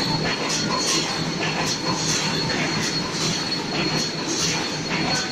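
Automatic wire mesh welding machine running, its welding heads firing and the mechanism clattering in a steady cycle of about two strokes a second, over a constant hum and a thin high whine.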